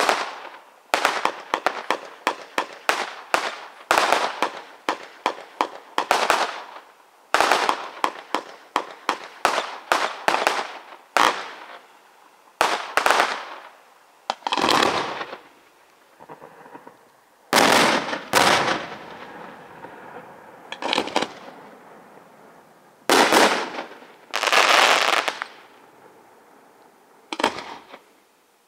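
Aerial fireworks going off in a display. A rapid string of sharp bangs, several a second, fills the first ten seconds or so. After that come slower, bigger bursts, each followed by a rushing tail about a second long.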